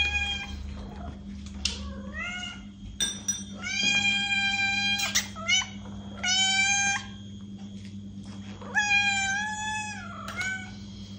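Domestic cats meowing repeatedly: about six meows, several long and drawn out, the others short and rising, each ending in a downward slide.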